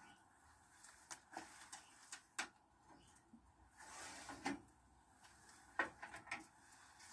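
Faint, scattered knocks and clatter, about half a dozen, as a ceramic tile and an angle grinder are handled on an aluminium stepladder work platform. The grinder is not running.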